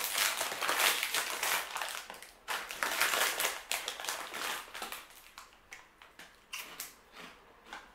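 Crinkly plastic snack bag rustling loudly as it is pulled open, then a few short crisp crunches from about five seconds in as a puffed rice-and-corn snack is bitten.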